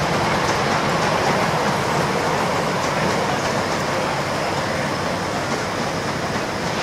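Wheels of a 7¼-inch gauge miniature railway goods train rolling past on steel track: a steady rumble with occasional light clicks.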